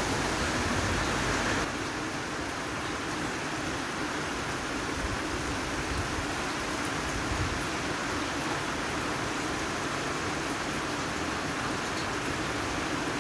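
Steady rain falling, an even hiss that drops a little in level about two seconds in.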